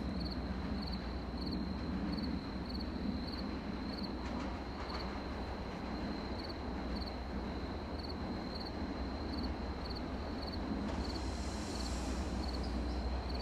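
Low rumble of an approaching train, still distant and growing louder near the end, with crickets chirping in a steady, regular rhythm throughout.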